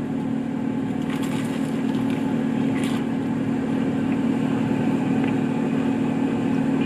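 A steady low mechanical hum, like a running engine or fan. There are a couple of faint brief crunchy sounds about one and three seconds in as food is bitten into.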